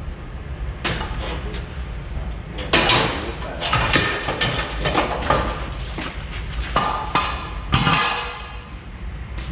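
Irregular metal-on-metal strikes and clanks, like hammering on the steel parts of a combine's feeder house, each ringing briefly, over a steady low hum.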